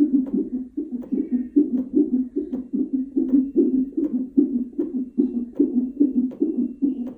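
Fetal heartbeat played through a CTG monitor's Doppler ultrasound speaker: an even run of pulses, about two and a half a second.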